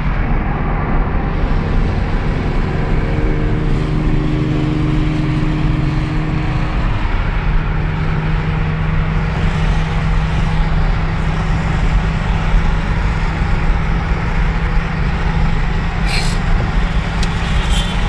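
Car driving at speed, heard from inside the cabin: steady engine hum and road rumble, with the engine note dipping briefly about seven seconds in before holding steady again.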